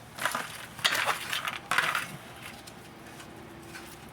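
Metal brake pad hardware clips being worked off a caliper bracket: metallic clinks and scraping in three short bursts during the first two seconds.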